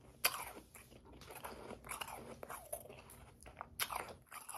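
Close-up chewing of powdery, slushy ice: one sharp bite about a quarter second in, then a run of small crunches, with a louder bite again near the end.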